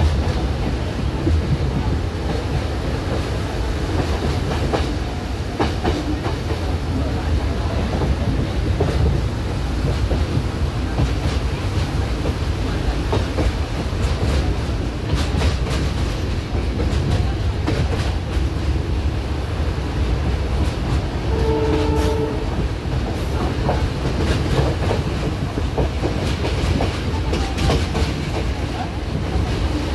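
Passenger train running at speed, heard from on board: a steady rumble of wheels on rails with clickety-clack over the rail joints. A horn sounds once, briefly, about two-thirds of the way through.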